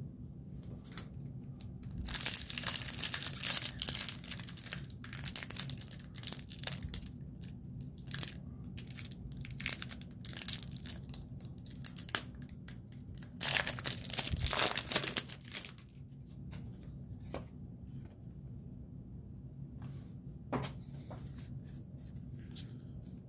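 A foil Pokémon booster pack wrapper being torn open and crinkled, in two loud stretches about two and thirteen seconds in. Short clicks and rustles of cards being handled come between and after.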